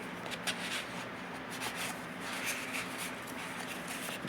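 Paper rustling and sliding as handmade cards and paper pockets are handled, with a scatter of short scrapes and taps.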